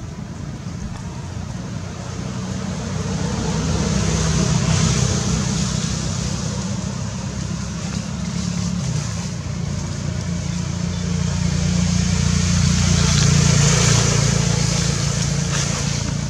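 Motor vehicle engines droning as they pass, a low hum that swells and fades twice.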